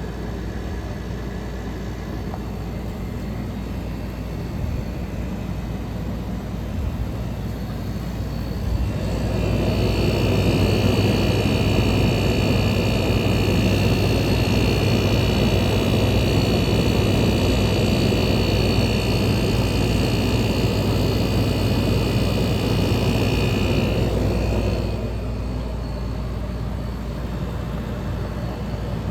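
A 1977 GE Superthrust window air conditioner with a rotary compressor, running with a steady low hum. About nine seconds in, a louder rush with a high-pitched whine joins and holds for about fifteen seconds, then stops abruptly.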